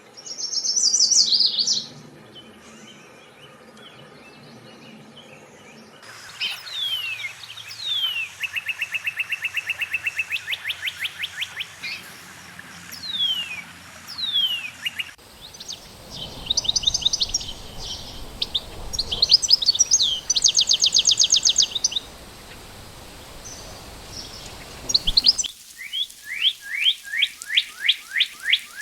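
Songbirds singing in several separate recordings joined one after another. First comes a short warbled song. Then come clear down-slurred whistles and a fast, even trill, followed by quick high trills, and near the end a run of down-slurred whistles at about three a second.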